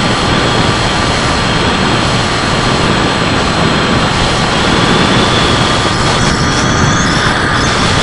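The electric motor and propeller of a Bixler foam RC plane, heard from the camera on board in flight. A steady high whine sits over a loud, constant rush of air and vibration noise.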